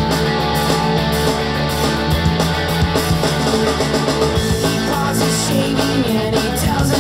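Rock music with electric guitar, bass and drums, played through a Riva Festival wireless speaker as a listening demonstration.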